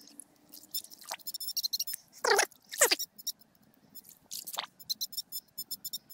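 Water splashing and sloshing as the riverbed is dug by hand in shallow water: three loud splashes near the middle. Under them runs a fast, high-pitched ticking in short runs.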